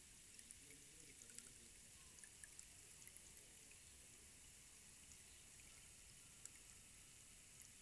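Rainstick trickling faintly, its fill falling through the upright tube as sparse light ticks over a low hiss.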